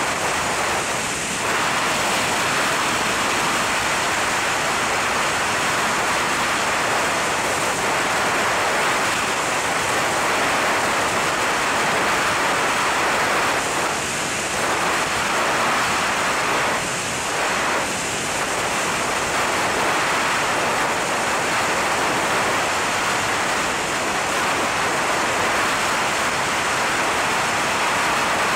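Steady rush of freefall wind blasting over a helmet-mounted camera microphone, with a few brief dips.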